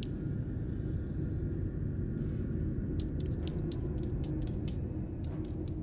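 Pigeon's claws tapping on a wooden floor as it walks, a quick, uneven run of light clicks starting about three seconds in, over a steady low rumble.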